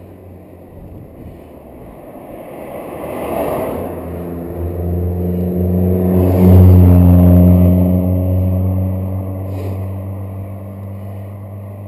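A motor vehicle passing the bicycle: engine hum and road noise build up, are loudest about six and a half seconds in, then fade away with a slight drop in pitch.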